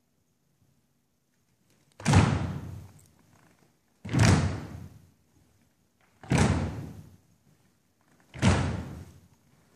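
Four heavy thuds, evenly spaced about two seconds apart, each fading with a roomy decay: an a cappella choir stomping in unison to set a slow beat before the singing comes in.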